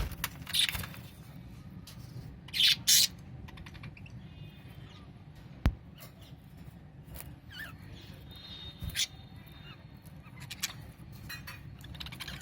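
Pet budgerigars giving scattered short chirps and squawks, the two loudest close together about three seconds in, with a single sharp click about halfway through.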